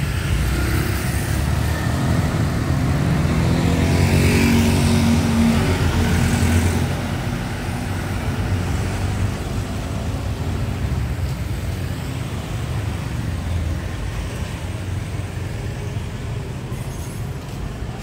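Street traffic noise with a motor vehicle passing close, loudest from about four to seven seconds in, then a steadier hum of traffic.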